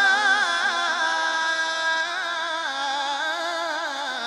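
A man reciting the Quran in melodic tajweed style, holding the long vowel of 'shā'a' as one sustained note with wavering, ornamented turns of pitch.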